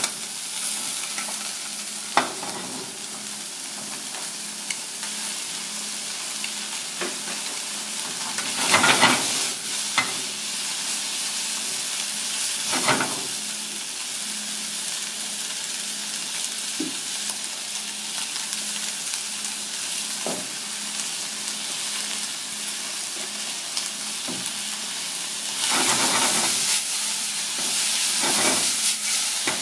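Sliced top shell sea snail and mushrooms sizzling in a small iron wok over a gas flame as they are stir-fried with chopsticks. The sizzle swells briefly a few times as the food is turned, with a few sharp clicks in between.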